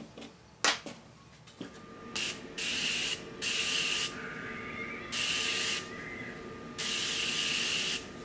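Aerosol can of Rust-Oleum rust blocker spraying in five short bursts of hiss, the last the longest, as the threaded rods are coated against rust.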